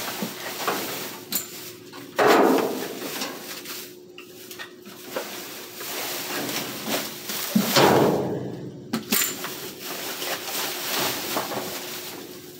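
Reacher-grabber tool rummaging through plastic trash bags in a metal dumpster: plastic crinkling and rustling mixed with clacks and knocks, with two louder spells of rustling about two and eight seconds in.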